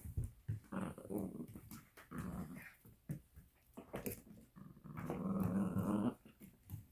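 Italian Greyhounds growling in play during a tug-of-war over a toy: a string of short growls, then a longer, louder growl about five seconds in.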